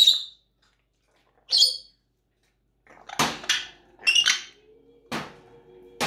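African grey parrot giving a string of short, sharp, high squawks and calls, about seven in all with brief gaps between them.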